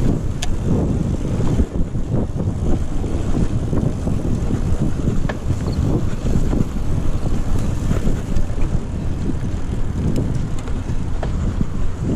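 Wind buffeting a mountain bike's action camera microphone at riding speed, over tyres rolling and rumbling on a packed dirt trail, with the bike rattling and a few sharp clicks scattered through.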